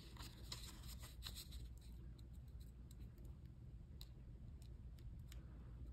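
Faint handling of a small sheet of paper stickers: fingertips and nails picking at the edges, giving light scattered ticks and rustles over a low steady hum.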